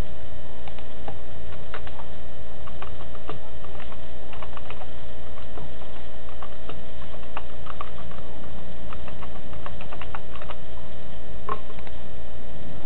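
Computer keyboard being typed on, irregular clicks of single keystrokes, over a steady hum with a low rumble.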